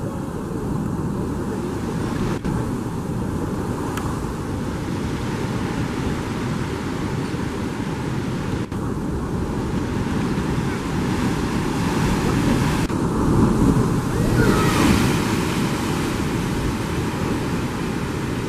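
Heavy ocean surf surging and breaking against layered coastal rocks, with wind on the microphone; the rush of water swells loudest about two-thirds of the way through.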